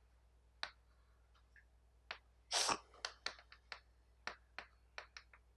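Chalk writing on a blackboard: a faint run of short taps and scratches as characters and a line are drawn, with one longer, louder scrape about two and a half seconds in.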